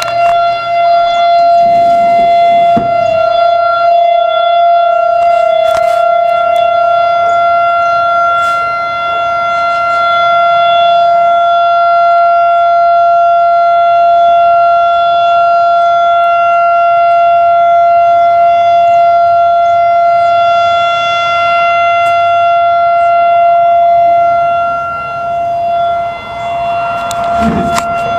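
Civil defense tsunami warning siren sounding a tsunami alert: one steady, unwavering tone with overtones, held without a break. It dips briefly in loudness near the end and comes back.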